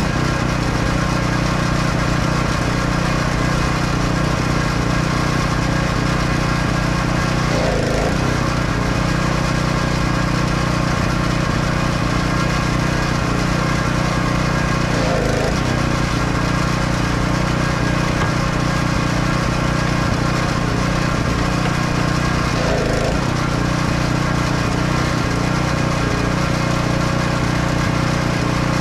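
A steady, loud machine drone, engine- or pump-like, holding constant pitch, with a short warbling swell about every seven to eight seconds.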